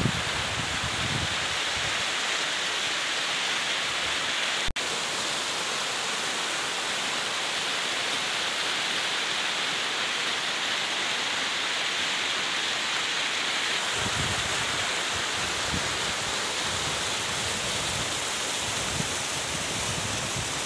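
Water rushing down steep rock slabs in a small cascade: a steady hiss of falling water, with a sharp click about five seconds in and low rumbling from about fourteen seconds in.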